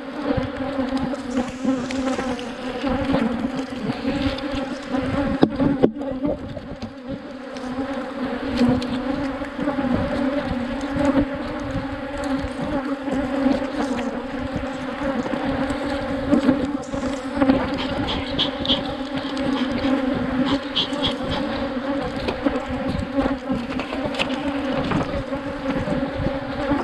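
A colony of honeybees buzzing around an opened hive, a steady hum with a clear pitch.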